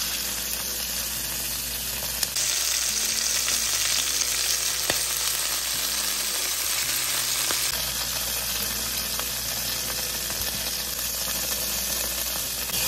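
Chicken thighs sizzling in hot oil in a cast iron skillet, searing skin side down: a steady frying hiss that grows a little louder from about two seconds in until near eight seconds.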